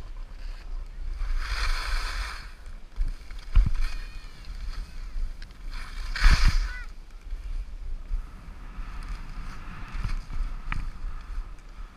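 Atomic skis turning through soft snow, two louder hissing sweeps of sliding snow about two and six seconds in and a fainter hiss near the end. A steady low rumble of wind on the microphone runs underneath.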